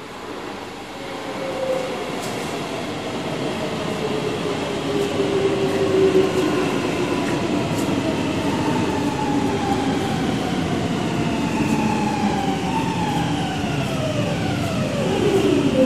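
A metro train pulling into a station platform: its running noise grows louder over the first few seconds, then several whining tones fall slowly in pitch as it slows, falling most steeply near the end.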